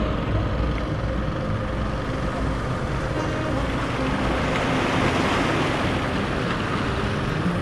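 Wind buffeting the microphone and small waves washing against breakwater rocks, with a steady low drone of fishing-boat engines out on the water. The wash swells about halfway through.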